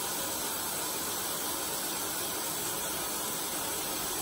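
Bathroom sink faucet running steadily into the basin, an even hiss of water.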